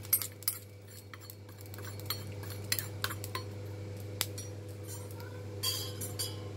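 Metal spoon scraping and tapping roasted cumin seeds out of a pan onto a steel plate: a quick run of clinks at first, then scattered light clicks, over a steady low hum.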